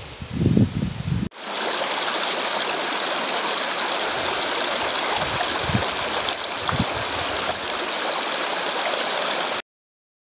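A shallow river rushes over rocks: a steady, even hiss of running water. It is preceded in the first second or so by a low rumble and thumps, then cuts off suddenly near the end.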